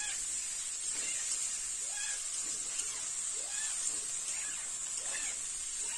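Okra and potato pieces frying in hot oil in a metal kadai, giving a steady sizzling hiss as they are stirred.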